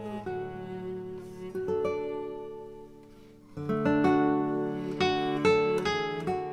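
Instrumental music of plucked strings: picked notes and chords that ring and fade. The music dips and then a louder phrase starts about three and a half seconds in.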